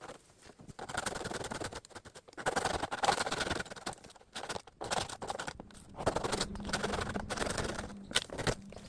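Rustling and scraping of bamboo stems and dry leaf litter being handled during hand clearing of a bamboo grove, in several bursts of one to two seconds each, with footsteps between them.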